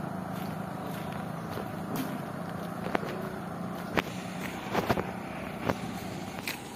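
A motor vehicle's engine hums steadily and fades out near the end, with a few sharp knocks about three, four and five seconds in.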